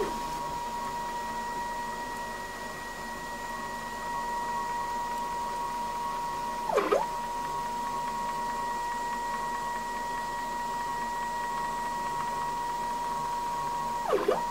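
Stepper motor on a DIY CNC's Z axis turning the leadscrew at a steady rate, giving a steady high whine. About seven seconds in and again near the end, the pitch dips sharply and comes back up with a brief louder blip as the motor slows, reverses the carriage and speeds up again.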